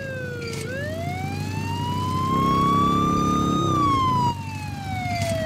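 Police motorcycle siren wailing: one slow rise in pitch to a peak a little over halfway through, then a long fall. A low drone runs underneath, grows louder in the middle and drops away about four seconds in.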